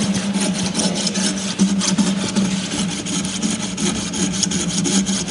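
Hacksaw cutting through white PVC drain pipe, in quick, even back-and-forth strokes that start suddenly.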